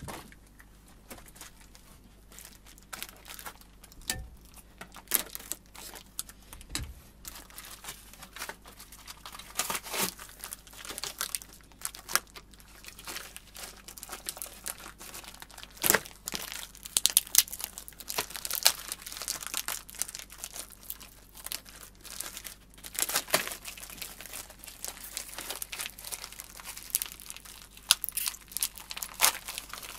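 Paper and plastic packaging crinkling and tearing as a new part is unwrapped by hand. The rustles and crackles come irregularly, sparse at first and busier from several seconds in.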